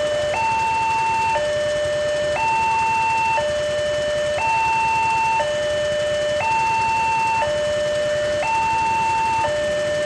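Railway level crossing warning siren sounding from its horn loudspeaker: a steady two-tone signal, alternating between a low and a high tone, each held for about a second.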